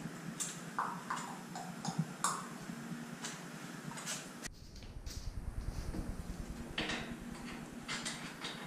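Light clicks, taps and rattles as a bicycle and small hand tools are handled during assembly, with a run of rapid ticking about halfway through.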